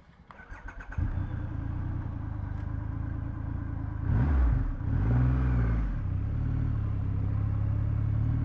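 Triumph Rocket 3R's 2,458 cc inline three-cylinder engine is cranked by the starter and catches about a second in. It is revved twice briefly, then settles to a steady idle.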